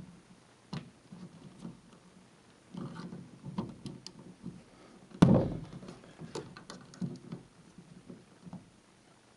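Scattered clicks and light knocks of hands handling small hard objects, with one louder thump about five seconds in.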